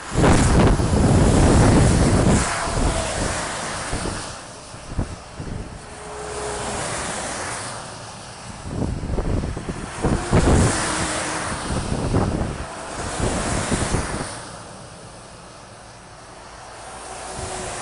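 Road and wind rush from a moving vehicle, swelling several times as oncoming container semi-trucks pass close by, each pass a whoosh of air and tyre spray off the wet, slushy road.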